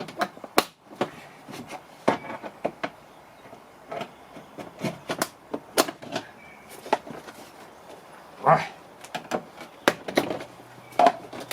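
Plastic push-pin clips of a car's interior door panel popping loose as the panel is pried off the door: a run of sharp, irregular clicks and knocks.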